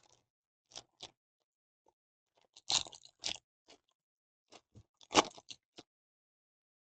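Crinkling and crackling as a trading card pack and its cards are handled, in short irregular bursts, loudest about three and five seconds in.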